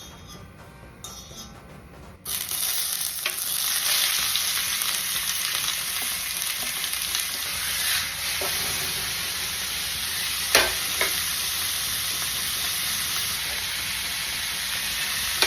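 Food, likely pork belly, hits a hot pan about two seconds in and starts sizzling loudly. It then fries steadily as it is stirred, with a few sharp clicks of the utensil on the pan.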